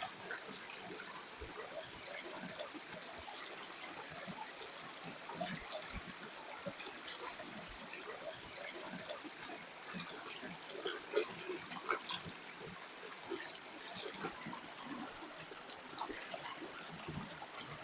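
Shallow stream trickling steadily, with scattered small clicks and taps over it, a few louder ones a little past the middle.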